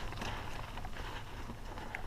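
Mountain bike rolling along a dirt trail: scattered light clicks and rattles from the bike over a low rumble of tyres and wind.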